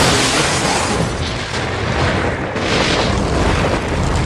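Explosion sound effects: a loud, continuous booming rumble of blasts, swelling again about two and a half seconds in.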